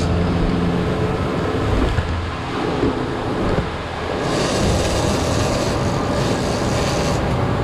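Twin outboard motors running with the boat under way: a steady low engine hum under the rushing noise of the wake and wind. A brighter hiss rises for about three seconds from about four seconds in.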